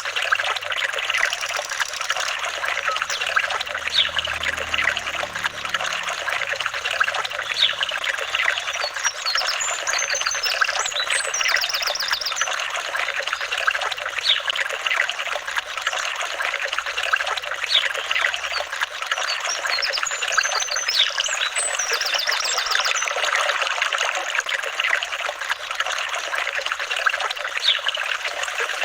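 Flowing water trickling steadily, with a few short high-pitched chirps about a third of the way in and again about two-thirds in.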